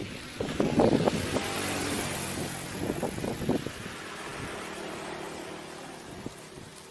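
A car passing on the road, loudest in the first couple of seconds and then fading away, with a few short knocks early on.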